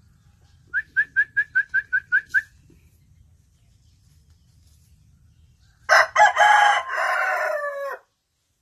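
A rooster gives a quick run of about nine short clucks, roughly five a second. A few seconds later comes a loud crow of about two seconds that falls in pitch at its tail and cuts off abruptly.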